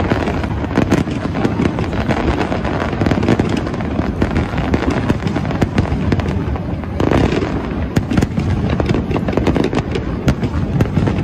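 Fireworks display at full intensity: aerial shells bursting in a rapid, unbroken barrage of overlapping bangs and crackles, with a fresh surge about seven seconds in.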